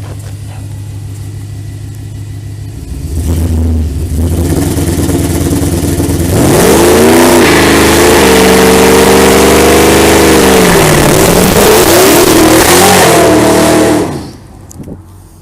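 Supercharged V8 of a Ford SVT Lightning pickup being run up hard while tested with a two-step rev limiter and line lock. It runs at a moderate level, gets louder about three seconds in, then from about six seconds revs very high with a wavering pitch and heavy noise for about eight seconds before cutting off suddenly.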